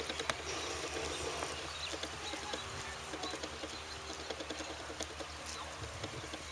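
Footsteps and small clicks and rustles of a handler walking a dog at heel, over a low steady rumble.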